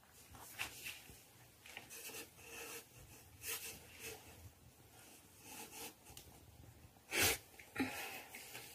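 Faint rustling and handling sounds as a cat shifts on paper pads in a cardboard box and a hand strokes her fur, with one short sharp burst of noise about seven seconds in.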